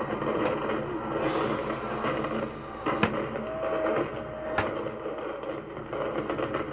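Demolition charges going off in the Hacienda hotel implosion, a crackling explosive rumble from the news broadcast replayed through laptop speakers, swelling about a second in. Two sharp cracks stand out, about three and four and a half seconds in.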